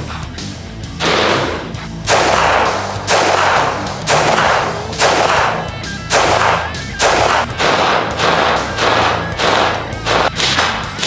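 AR-15 rifle shots, about one a second and coming quicker in the second half, laid over rock music with a steady bass.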